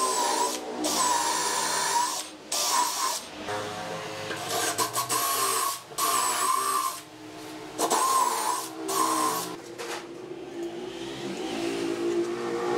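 Cordless drill boring into a thick solid-wood slab in about five short runs, its motor whine wavering in pitch within each run. The drilling stops about ten seconds in.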